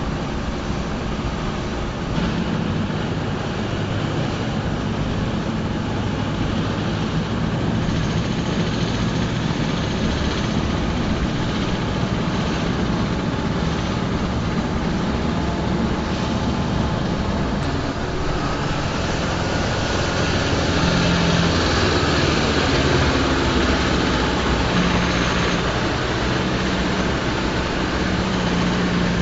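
Mercedes-Benz Unimog's diesel engine running steadily as the truck drives along, its low drone joined by rising road and tyre noise in the second half as it comes closer.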